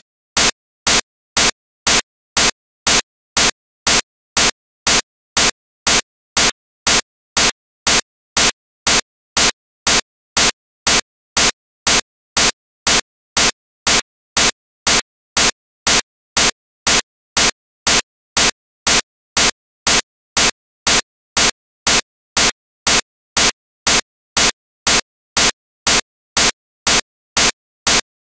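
Regular short bursts of static-like noise, about two a second, each cutting off sharply into silence, at an even beat throughout.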